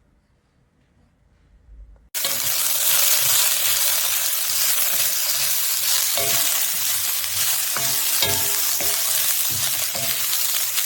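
Food frying in a wok: a loud, steady sizzle starts suddenly about two seconds in, with a few short clinks partway through.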